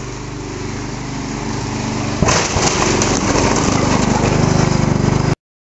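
Gas lawn mower engine running and growing louder. About two seconds in there is a sudden loud crash as it smashes into a large television, and crunching and clattering continue over the engine until the sound cuts off abruptly.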